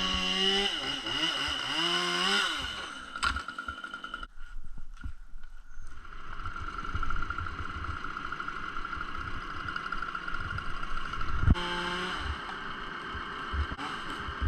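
Chainsaw engine running, its pitch rising and falling, then holding steadier, with a sharp knock about three seconds in and another a few seconds before the end.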